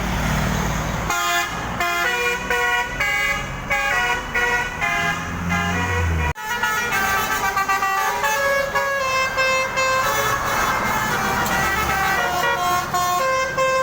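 Basuri multi-trumpet bus air horn playing a melody in quick stepped notes, over a low engine rumble. About six seconds in it breaks off sharply, then the horn tune carries on.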